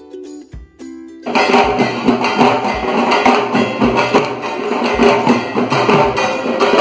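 A light melodic tune plays for about the first second, then loud, dense drumming with a driving beat starts abruptly and carries on.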